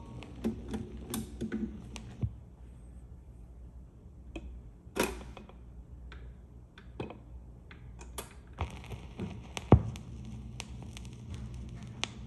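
Record changer of a Panasonic SD-85 stereo cycling: scattered mechanical clicks and knocks as the next LP drops onto the platter and the tonearm swings over and sets down, with the loudest knock about ten seconds in. From about eight and a half seconds a steady hiss of the stylus in the lead-in groove runs under the clicks.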